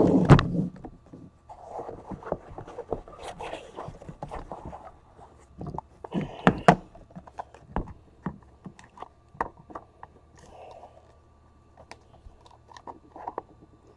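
Hands opening an aluminium briefcase and handling the small card boxes inside it: scrapes, rustles and a run of sharp clicks and taps. It is loudest right at the start and again about six and a half seconds in.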